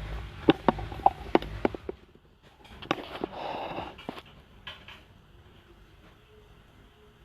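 A quick run of sharp clicks and knocks, like small hard objects being handled, then a short rustle about three and a half seconds in, and after that only a faint steady hum.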